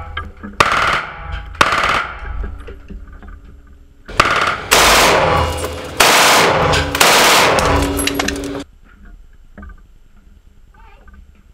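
Heckler & Koch MP5K submachine gun fired full-auto from its operational briefcase: two short bursts in the first two seconds, then longer bursts of rapid fire from about four seconds in that stop abruptly at about nine seconds.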